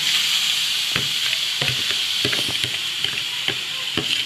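Marinated chicken sizzling steadily as it lands on a hot flat steel parat, with scattered clicks and scrapes of a metal spoon working the chicken and the bowl.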